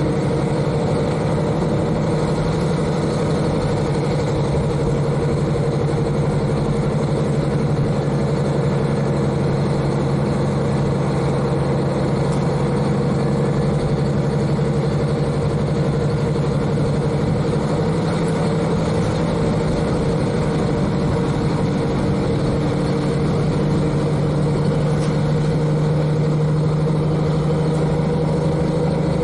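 KiHa 40 diesel railcar's N-DMF13HZI six-cylinder diesel engine running at a steady speed, heard from directly above the engine inside the car: a constant low drone with no change in pitch.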